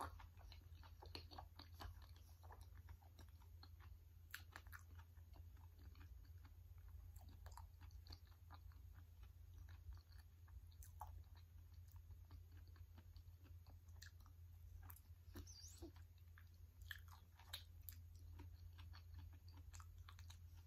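Faint, soft chewing of creamy durian flesh: scattered small wet mouth clicks and smacks, over a steady low hum.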